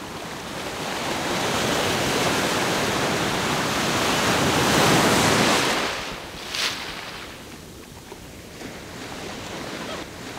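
Ocean surf breaking on a beach. One wave's rush builds for several seconds, peaks about five seconds in and falls away, with a brief sharp burst of noise just after.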